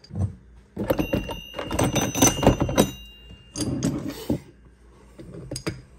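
Steel pieces of a bearing race puller set clinking and clattering against each other as they are sorted by hand, with a ringing note from struck metal in the first few seconds and a few lighter clinks later.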